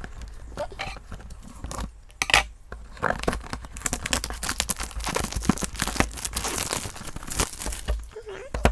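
Clear plastic shrink-wrap being torn and peeled off a small cardboard collectible box, crinkling and crackling with many small sharp rips.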